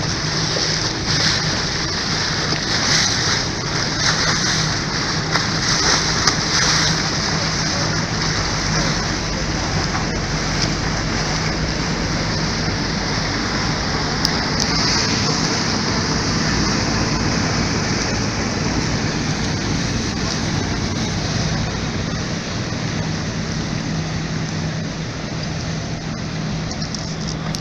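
Motorboat engine running steadily with a low hum, under a loud rush and splash of water along the hull.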